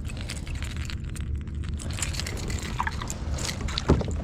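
Water splashing and sloshing close by, with many short sharp splashes and a louder smack near the end.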